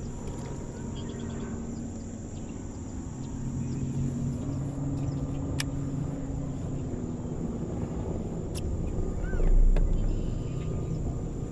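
Steady low hum of a boat motor running, with two sharp clicks in the middle and a low thump near the end.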